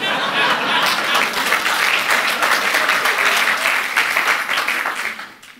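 Audience applauding in a hall, a dense patter of clapping that dies away near the end.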